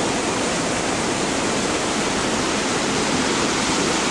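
Whitewater rapids of a river rushing steadily, a dense even roar of churning water.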